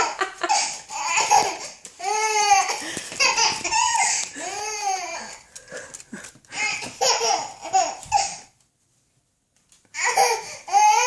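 Small child laughing in repeated fits with high, rising-and-falling squeals, set off by someone's sneezes. The laughter breaks off for about a second and a half near the end, then starts again.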